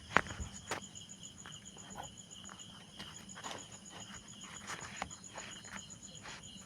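Scattered clicks and knocks of an e-rickshaw battery charger being handled and turned over on the bench, the loudest right at the start. Behind them a steady high insect chirping, like crickets, pulses evenly.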